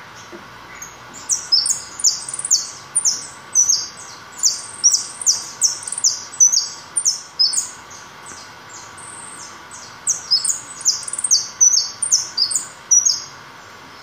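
A caged white jilguero (finch) singing: a long run of quick, high, twittering notes, with a short pause a little past the middle.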